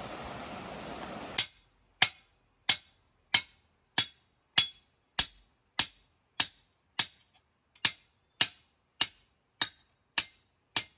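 A hammer striking a steel hoe blade laid on a piece of rail used as an anvil, about sixteen sharp ringing metallic blows in a steady rhythm, roughly three every two seconds: the blunt hoe edge being hammered out to sharpen it. Before the blows begin, a second and a half of rushing stream water.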